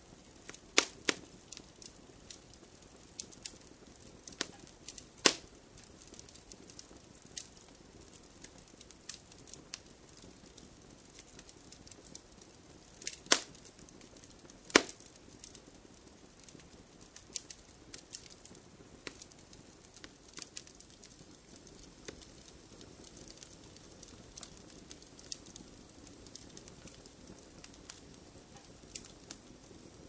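Wood fire crackling in a fireplace: irregular sharp pops and snaps over a faint steady hiss, with a few louder pops about five seconds in and again around thirteen and fifteen seconds.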